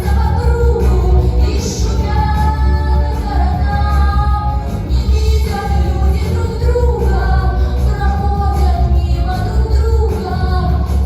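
Background music: a woman singing a melody over a steady, heavy bass.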